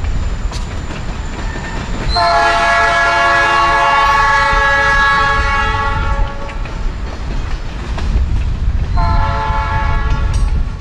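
Canadian Pacific freight train's hopper cars rolling past with a steady low rumble, while the locomotive's air horn sounds from up the line: the tail of one blast at the start, a long blast of several seconds, and a shorter blast near the end.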